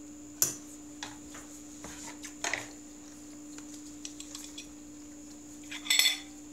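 Scattered light clicks and clinks of a metal fork against a plate as gloved hands handle the dish, with a louder clatter about six seconds in. A steady low hum runs underneath.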